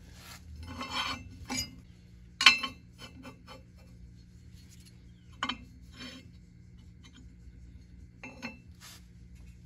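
A cast-aluminium oil pump cover and a steel bar handled on a square steel tube: scraping and rubbing with sharp metal clinks, the loudest about two and a half seconds in and lighter knocks later on.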